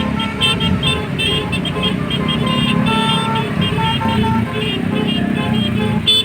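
Basuri multi-tone "telolet" bus horn playing a tune of short stepped notes over the low running of the bus engine.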